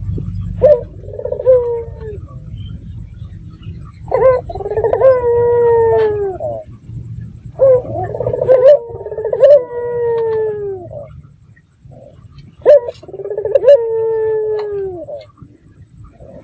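Puter (domestic ringneck dove) cooing in four loud phrases, each a short sharp note followed by a long drawn coo that slides down in pitch.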